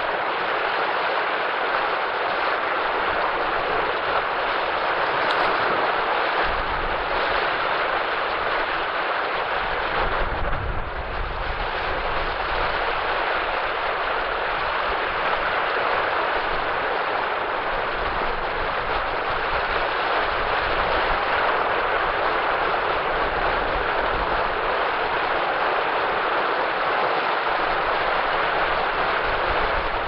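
Small sea waves breaking and washing up a sandy beach in a steady surf hiss, with a low rumble about ten seconds in.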